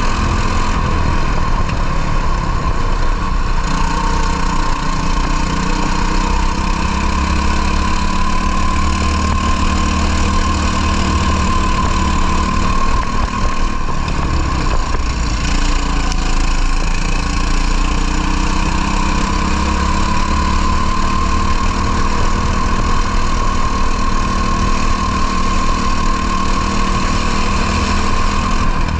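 Two-stroke racing kart engine running at high revs, heard from on board the kart, its pitch drifting gently up and down with a dip about halfway through.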